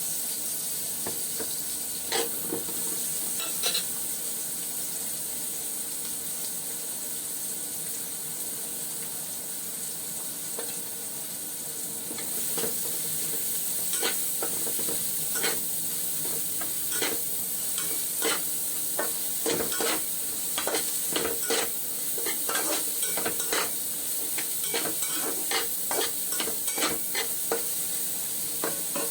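Food sizzling steadily in a hot pan, with a utensil scraping and clicking against the pan as it is stirred. The stirring strokes come more often in the second half.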